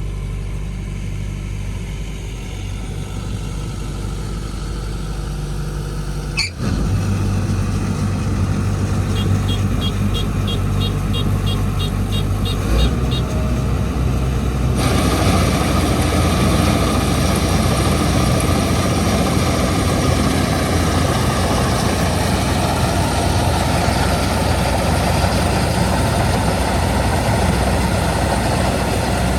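Engine of a rice-harvesting machine running steadily. It briefly drops out about six seconds in and then comes back louder, with a short run of quick high ticks, about four a second. About halfway through a louder rushing noise joins the engine and keeps on.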